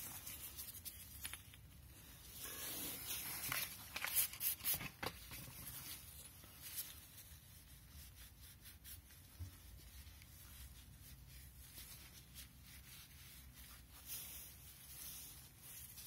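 Faint rubbing and rustling of a cloth rag as gloved hands wipe old grease off a brake caliper slide pin, with a few louder scrubbing strokes about four seconds in.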